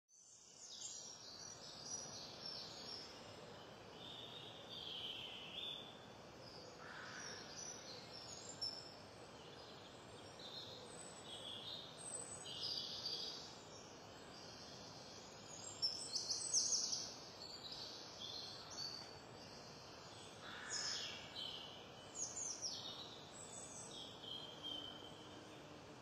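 Small woodland songbirds chirping and twittering in short, high calls and quick falling whistles over a steady outdoor hiss, busiest and loudest a little past the middle.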